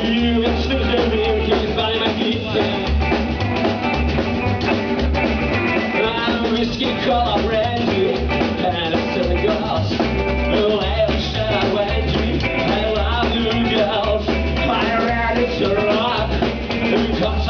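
Live rock band playing loud with drum kit, bass and electric guitar, the kick drum pulsing steadily.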